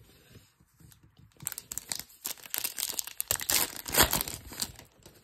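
Foil wrapper of a Topps Chrome baseball card pack being torn open and crinkled in the hands. A run of crackling and tearing starts about a second and a half in and is loudest near the end.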